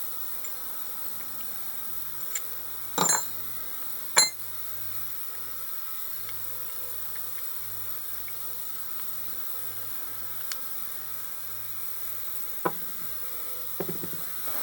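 Small metal parts of a diesel injector being handled, giving a few sharp metallic clinks and knocks over a steady background hiss. The loudest is a ringing clink about four seconds in.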